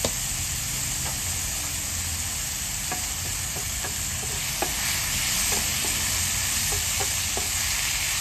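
Chopped onion, garlic and tomato sizzling steadily in hot oil in a ceramic-coated frying pan. A wooden spatula stirs them, giving frequent light taps and scrapes against the pan.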